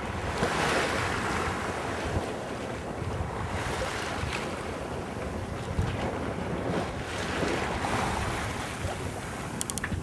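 Wind and waves while sailing: a steady wash of water noise that swells and ebbs every few seconds, with wind rumbling on the microphone.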